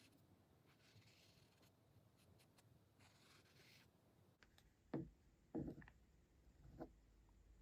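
Faint scratchy strokes, like a tool drawn over a surface, for the first few seconds, then three soft knocks.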